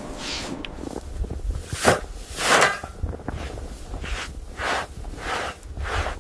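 Footsteps crunching through snow at a walking pace, over a steady low rumble.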